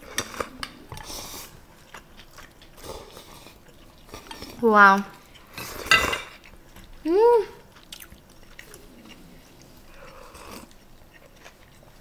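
Table-eating sounds: chopsticks and spoons clicking against bowls, with one sharp ringing clink of metal about six seconds in.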